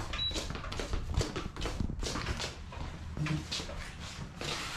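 Handling noise from something heavy being carried and set down: a string of knocks, scuffs and rustles, with a brief high squeak near the start.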